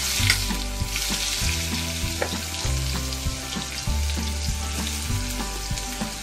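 Sliced onions sizzling in hot mustard oil in a steel kadai, a steady frying hiss with small crackles.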